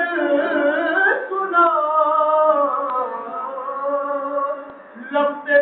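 A man singing a devotional Urdu piece addressed to the Prophet into a microphone, unaccompanied. He holds long, wavering, ornamented notes and takes a short breath a little before the end.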